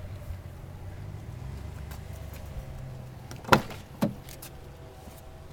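Door of a 2014 Ford Mustang coupe being opened: a sharp latch click and then a second clunk about half a second later, over a steady low rumble.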